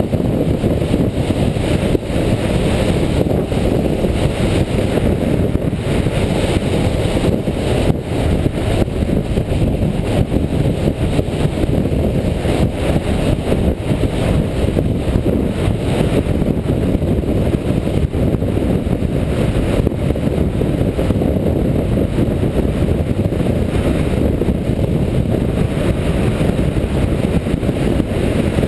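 Suzuki GS500's air-cooled parallel-twin engine running steadily as the motorcycle rides along at road speed, mixed with a heavy, steady rush of wind on the bike-mounted camera's microphone.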